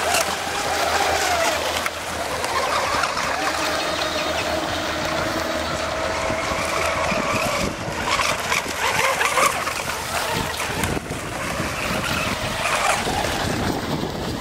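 Several electric radio-controlled catamaran racing boats running flat out, their motors whining at a pitch that slowly shifts as they pass and turn, with water hiss from their spray.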